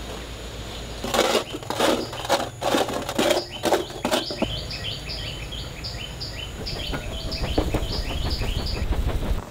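A quick cluster of sharp knocks and scrapes, then a bird calling a fast run of short chirps, each dropping in pitch, about two or three a second, over a low steady background rumble.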